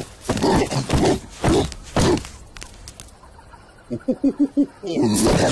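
Cartoon animal vocal sound effects. Several loud, short wordless vocal bursts come first, then a quick run of five pitched hoots about four seconds in, then another loud burst at the end.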